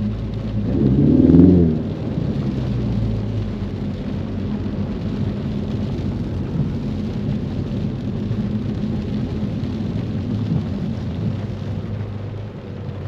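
Ford Mustang's engine revving up briefly about a second in, then running steadily while driving, over a constant wash of rain and wet-road noise.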